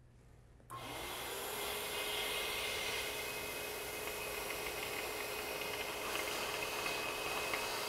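Compressed air hissing steadily as it is blown into a cooling-system hose, starting abruptly about a second in, with a faint steady whistle in it. The high-volume, low-pressure air is forcing the remaining old coolant out through the radiator and engine block drains.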